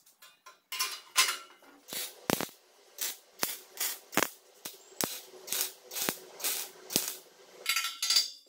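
Hammer striking a welded steel tube motorcycle frame, sharp metallic clanks about twice a second, ending in a brief scraping rattle.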